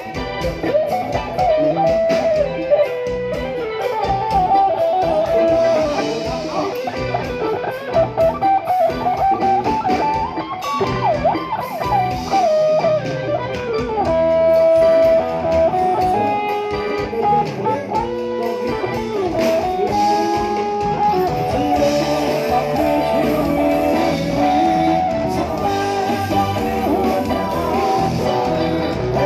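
Live band playing an instrumental break, a bending electric guitar lead over bass and drums with a steady beat.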